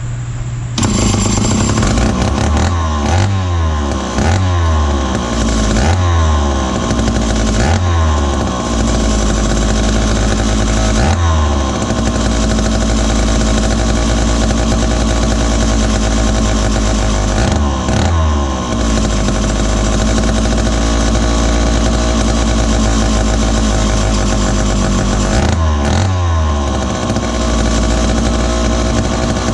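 Dayton 2Z383 (Lancaster 40IL) two-stroke chainsaw engine running. In the first ten seconds or so, and again near the end, the pitch sweeps up and falls back several times as the throttle is worked; in between it holds a steady run.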